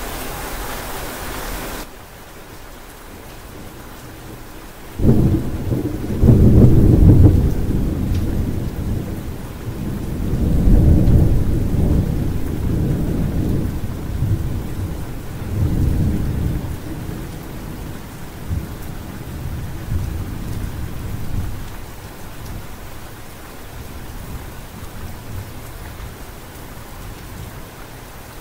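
Steady rain falling, its hiss turning softer about two seconds in. About five seconds in, thunder breaks suddenly and rumbles on in several swells, dying away over roughly fifteen seconds.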